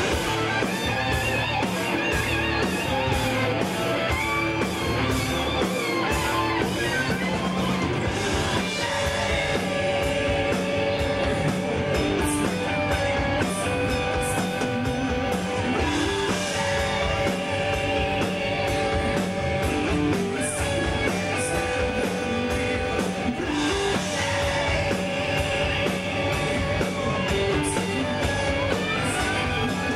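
Rock band playing live: electric guitars, bass and drums with regular cymbal strokes, and a singer.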